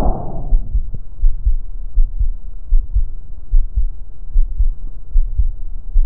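Chest sounds heard through a stethoscope. A breath sound fades out about half a second in, then the heartbeat thumps regularly, a little more than one beat a second, in the pause before the next breath.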